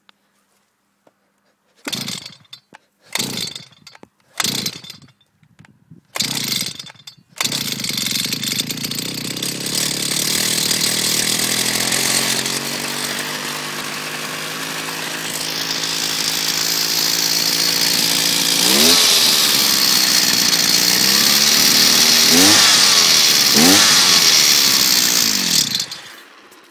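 Cold start of a 50cc two-stroke strimmer engine: four short bursts as the starter cord is pulled, then the engine catches about seven seconds in and runs. It is revved up and down several times near the end, then shuts off.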